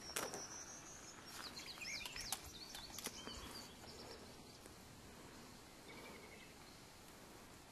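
Faint bird chirping, a quick run of rising and falling high notes between about one and a half and three and a half seconds in, over quiet background noise.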